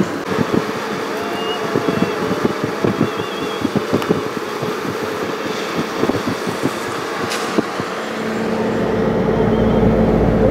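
Outdoor ambience with irregular knocks and crackles, then background music with steady low tones fading in about eight seconds in.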